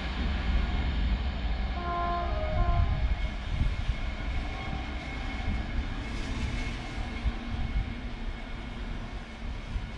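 Passenger train running away down the line with a steady low rumble; about two seconds in its horn sounds once, briefly, with a slight drop in pitch partway through.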